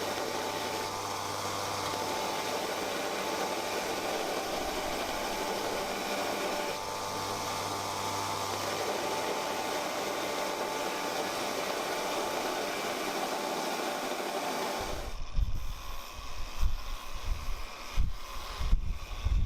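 Steady rushing noise with a low hum, like a fan or blower running. About fifteen seconds in it cuts off and gives way to irregular wind buffeting on the microphone.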